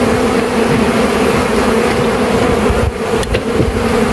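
Dense, steady buzzing of a mass of honeybees around an opened hive being worked: a continuous hum with a strong low tone and a second tone an octave above it. The colony is stirred up by the frames being pulled and the bees being driven off them.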